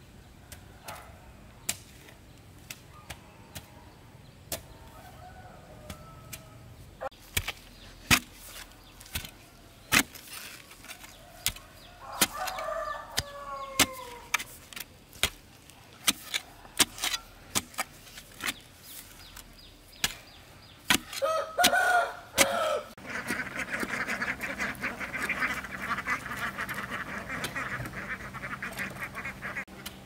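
Repeated dull thuds of a pole being rammed into clay soil to open post holes, at an uneven pace. Chickens cluck and crow twice, in the middle and about two-thirds through. Over the last seven seconds a steady, fast rasping chirr sounds.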